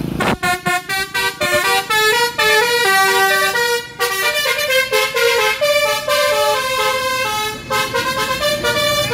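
Basuri horn, the multi-tone melody horn of an Indonesian tour bus, playing a loud tune. It opens with a quick string of short stabbed notes, then moves to longer held notes stepping up and down in pitch.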